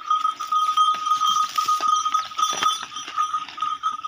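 Bullock cart hauling a heavy load of hay: a continuous, pulsing high-pitched ringing tone with many quick clicks and knocks from the moving cart and the bullocks.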